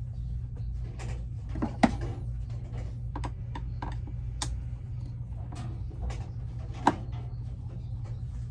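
Irregular clicks and knocks of hand tools and parts being handled during work on a mower, with two louder knocks, about two seconds in and near seven seconds, over a steady low hum.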